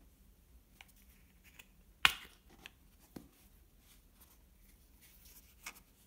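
Small clicks and taps from handling a plastic squeeze bottle of honey: one sharp click about two seconds in, then a few fainter clicks.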